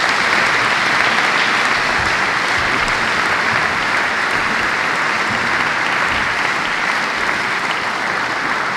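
Audience applauding, dense steady clapping from a seated crowd that eases off slightly near the end.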